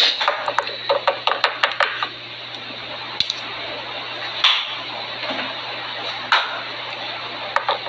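Quick, light clicks and clatter of small plastic items being handled: sample nail tips and their clear plastic case. There is a rapid cluster of clicks in the first two seconds, a few single clicks after that, and another cluster near the end, all over a steady hiss.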